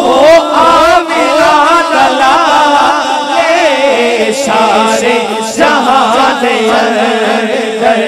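Men singing a naat, a devotional hymn: the lead voice winds through a wavering, ornamented line, with a steady held lower note beneath it from about halfway.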